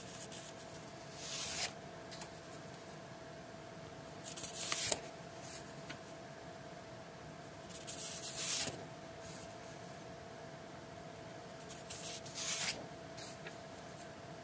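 Sheets of drawing paper being leafed through by hand: four short paper rustles, about one every three to four seconds, over a faint steady hum.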